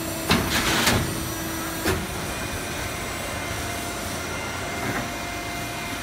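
Automatic angle-steel-flange HVAC duct production line starting its run: a few short bursts of hiss and clatter in the first second and a knock about two seconds in, then a steady machine hum with its hydraulic pump running.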